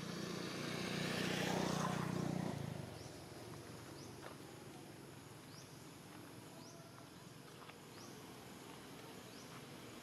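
A motor vehicle passing, loudest one to two seconds in with a steady low hum and fading out by about three seconds in. Then quiet outdoor ambience with short high chirps every second or so.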